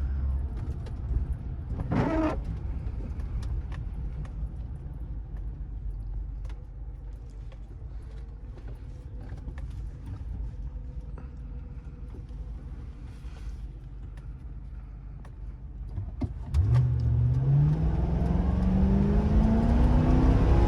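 Ford Crown Victoria's V8 engine running steadily at low speed, with a few faint clicks and a brief sound about two seconds in. Near the end the engine speeds up, its pitch rising steadily as the car accelerates.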